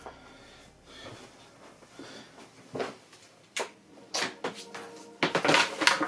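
Background music with irregular clicks and knocks of hard objects being handled, a few single knocks at first, then a denser, louder clatter near the end.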